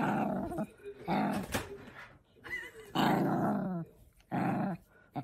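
Small white fluffy dog growling in play while a hand wrestles with it, in about five short growls with brief pauses between.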